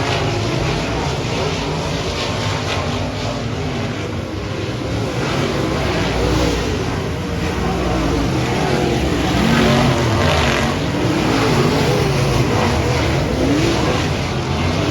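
Dirt-track race cars running on the track, several engines at once, their pitch rising and falling as they accelerate and lift.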